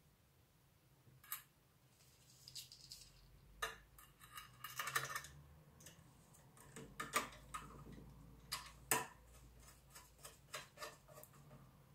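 Faint, scattered clicks, taps and scrapes of a small screwdriver and screws against a metal router enclosure during assembly, with a short run of rattling clicks about five seconds in.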